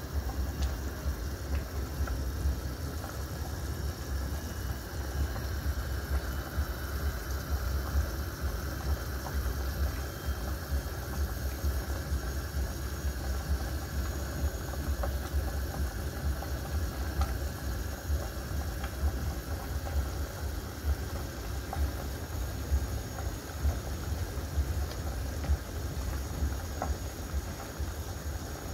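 Chicken soup boiling hard in a stainless steel stockpot: a steady low bubbling with occasional faint ticks.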